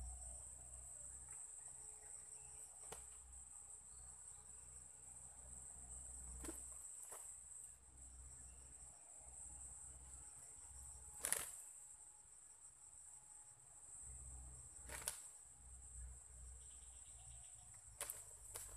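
Steady high-pitched insect drone, with several sharp clicks or snaps scattered through it, the loudest about eleven seconds in.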